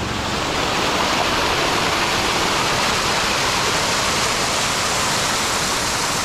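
Hot spring outflow cascading down a rocky bank and over stones close by: a steady rushing splash of falling water.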